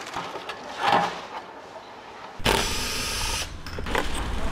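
A short knock, then a handheld power tool running with a whine for about a second, over a low steady hum that starts with it.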